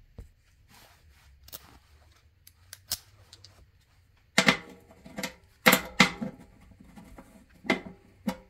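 Metal hand tools clinking and clanking as sockets and bits are handled and swapped on a cordless impact driver: a few light clicks, then from about halfway a run of louder clanks with a short ring.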